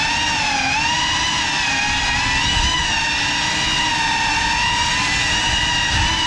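Brushless motors of a GEPRC Cinelog 35 6S cinewhoop whining in flight, a near-steady pitch that dips slightly about half a second in and rises gently near the end, over a low rumble of prop wash.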